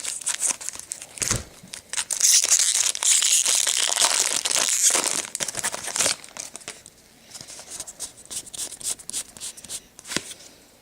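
A Magic: The Gathering booster pack's plastic wrapper being torn open and crinkled, loudest for about four seconds from two seconds in, followed by softer rustling and light ticks as the pack is handled.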